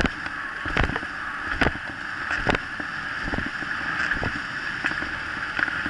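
Kick scooter rolling fast over a bumpy dirt trail: a steady rush of tyre and wind noise, broken by sharp knocks and rattles as the scooter hits bumps, the loudest about a second and a half and two and a half seconds in.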